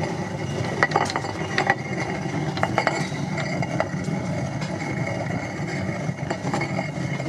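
Model water mills clattering: small knocks and clicks coming irregularly over a steady rush of water from the brook that drives them.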